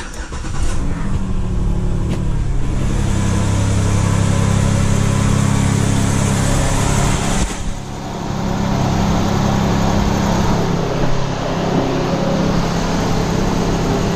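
A 2006 Chevy Impala's 3.5-litre V6 is cranked and starts within the first second, then runs at a steady idle. It is heard first from inside the cabin and then, after a brief dip about eight seconds in, from beside the open engine bay.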